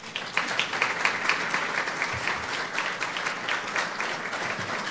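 Audience applauding: many hands clapping, breaking out suddenly and then holding steady.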